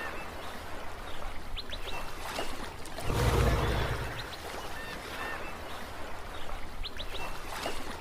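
Sea waves washing onto a shore, with one wave surging in loudly about three seconds in, while birds call in short chirps over the wash.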